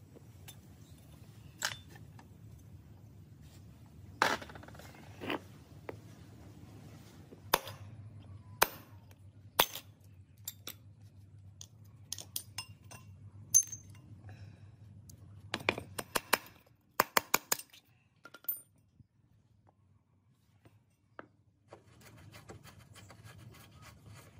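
Hand tools and small metal parts clinking and tapping as a rusty mini-motorbike rear sprocket and wheel hub are taken apart, in scattered single clicks with a quick run of several clicks about two-thirds of the way through.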